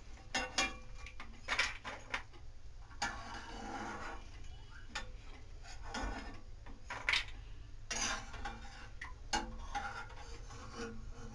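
Crisp fried namak paare (salted maida dough pieces) clicking and rattling as they are moved about in a dish, in irregular light clicks and rustles.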